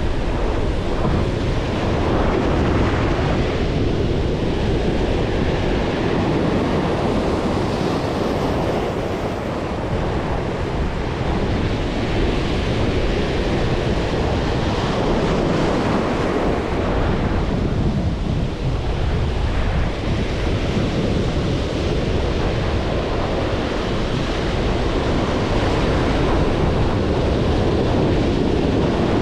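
Waves breaking on the shore, with strong wind buffeting the microphone.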